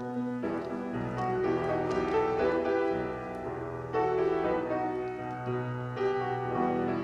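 Piano playing a slow hymn introduction in held chords, starting abruptly, with a few new chords struck along the way.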